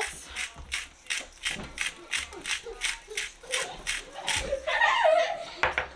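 Himalayan pink salt being dispensed into a bowl of dry spice rub: a steady rhythmic crunching rattle, about four strokes a second, that stops about four seconds in.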